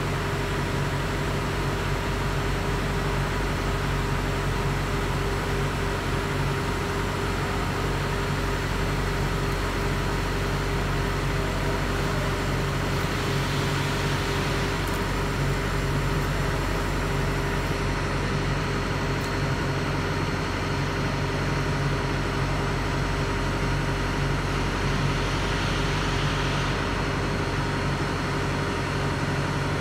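Steady hum of a stationary BYD electric single-deck bus running, with several constant tones over a low, even noise and a faint hiss that swells twice.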